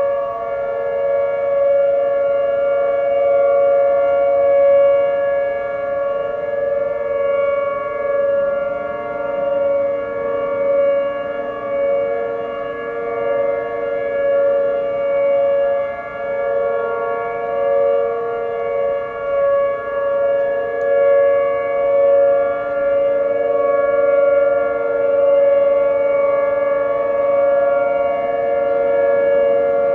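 Several outdoor warning sirens, Whelen 2806 and 2905 units among them, sounding a steady Alert tone together, the two strongest at close but different pitches. The sound swells and fades every second or two. This is the monthly test of the city's outdoor warning sirens.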